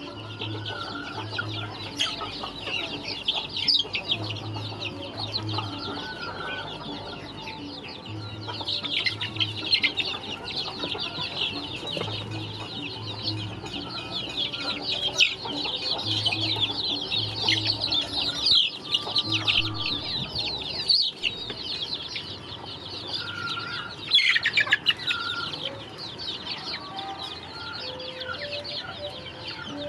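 A flock of young chickens peeping and cheeping constantly while pecking at food, many short high calls overlapping. The calling thickens in the middle, and there is a brief burst of louder calls a little after two-thirds of the way through.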